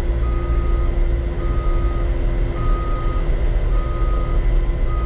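Caterpillar 289D3 compact track loader's backup alarm beeping five times, about once a second, over the steady running of its diesel engine: the machine is reversing.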